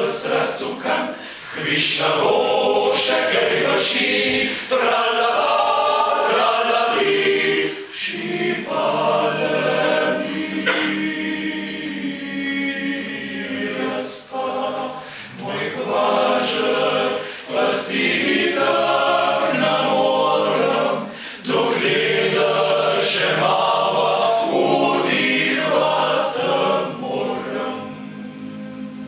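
Men's choir singing a Slovenian song in several-part harmony, unaccompanied, in long phrases with short breaks between them.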